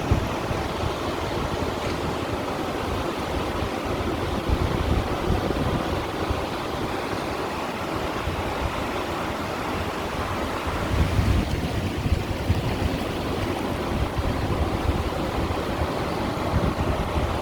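Sea water washing against shore stones: a continuous rushing wash that swells and eases, over a low rumble.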